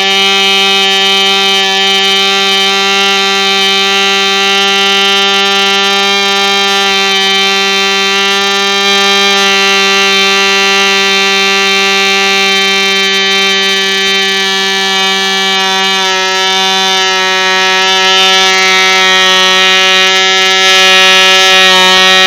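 2.49 cc Elfin-replica model diesel engine running at full speed with a propeller, a loud steady high-pitched buzz holding one pitch, getting a little louder near the end. It runs strongly after its rebuild with a new connecting rod.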